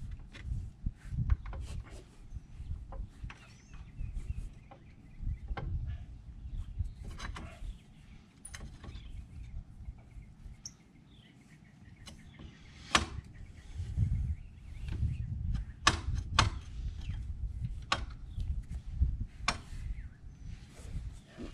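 Irregular metallic clicks and knocks of hand work on a brake caliper as new pads are fitted, over low rumbling handling noise.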